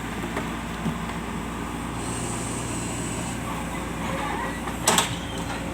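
Diesel engine of a JCB backhoe loader running steadily while working, with one sharp knock about five seconds in.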